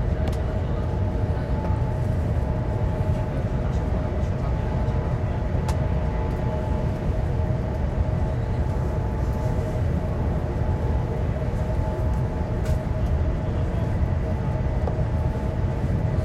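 Cabin noise of a high-speed bullet train running at speed: a steady low rumble and rush from inside the passenger car, with a constant hum over it and a couple of faint ticks.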